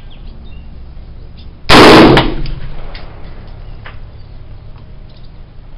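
A single rifle shot from a Dominion Arms AR-15 in 5.56×45 mm, close and very loud, about two seconds in, with a short ringing tail. A few faint clicks follow.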